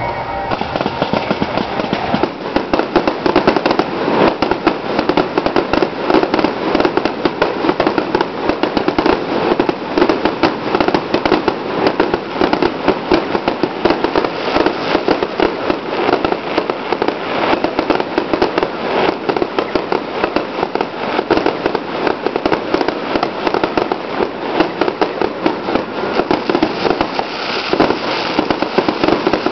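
Fireworks display going off: a dense, continuous crackle of many rapid small bangs, with louder reports standing out among them.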